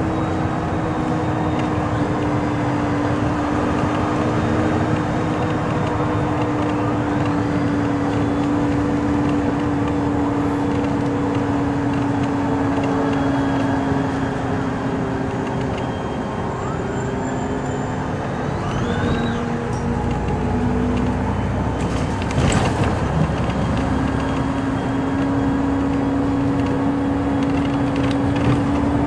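Car driving at highway speed, heard from inside the car: steady tyre and road noise with a low, even drone, and one short thump about two-thirds of the way through.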